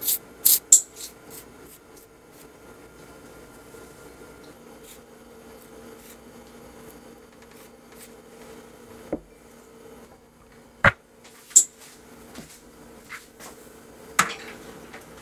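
Light kitchen handling sounds over a faint steady hum: a quick run of sharp clicks at the start, then a few isolated taps and knocks, the last one near the end.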